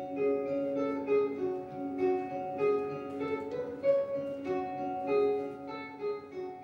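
Instrumental background music led by a plucked guitar, with held notes and a steady melody.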